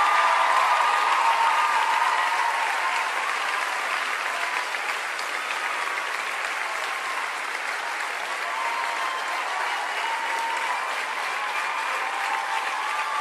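Large concert audience applauding, loudest at the start and easing a little.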